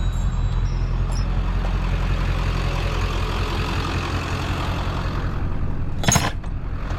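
Vehicle engine idling with a steady low hum. The last high tones of a small metal wind chime fade out at the start, and one short clatter comes about six seconds in.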